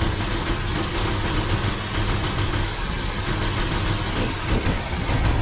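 Car engine idling steadily, a continuous even hum.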